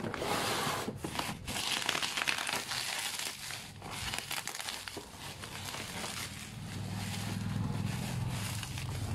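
Plastic bubble wrap crinkling and rustling as it is handled and pulled off a package, in irregular crackly bursts. A low steady hum comes in for the last two to three seconds.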